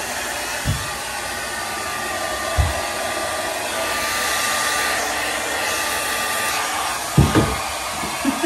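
Handheld hair dryer running steadily as it blows on wet hair: an even rush of air with a faint motor whine. A few low thuds sound through it, the loudest about seven seconds in.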